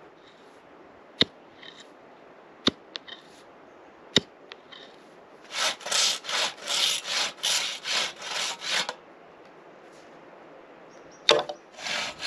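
Hand saw cutting through a bamboo pole in quick back-and-forth strokes, about three or four a second, for some three seconds. Before it come three sharp knocks about a second and a half apart, and near the end another knock and a few more strokes.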